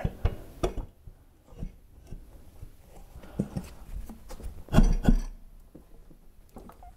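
Small ATV wheel with a 3D-printed PLA hub being worked onto the splined axle by hand: scattered knocks and scrapes, with a heavier thump about five seconds in.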